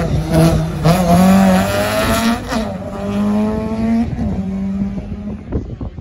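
Competition car's engine accelerating hard through the gears on a sprint run, climbing in pitch and dropping at three upshifts, then fading away as the car passes on.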